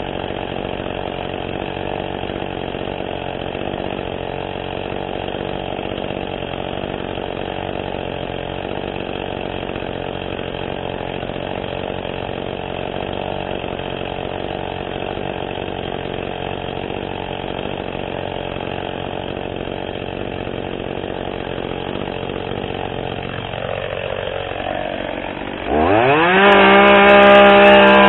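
ECHO two-stroke chainsaw idling steadily, then revved up sharply near the end and held at full throttle.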